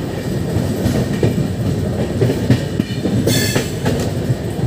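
Express train coach running along the track, heard at its open door: a steady low rumble of wheels on rail with irregular clatter. A brief high-pitched wheel squeal cuts in about three and a half seconds in.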